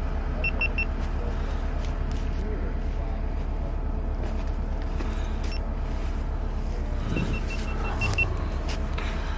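Diesel engine idling with a steady, even low rumble. Two runs of short high beeps sit over it: three quick beeps near the start and about seven in a row near the end.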